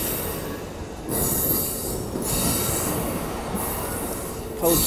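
Amtrak Superliner bilevel passenger cars rolling past close by: a steady rumble of wheels on rail with a high hiss that comes and goes about once a second.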